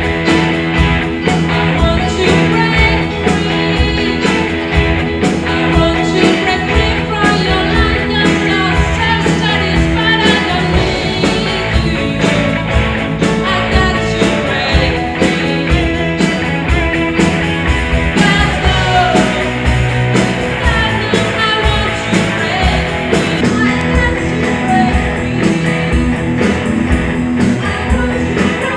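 Rock-and-roll song with a singing voice, electric guitar and a steady drum beat.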